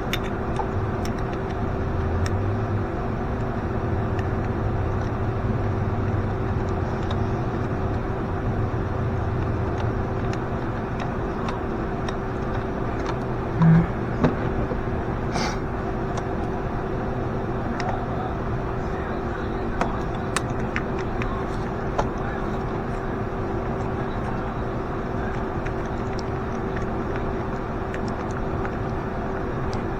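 A steady mechanical hum, with scattered light clicks and taps and one louder thump about 14 seconds in.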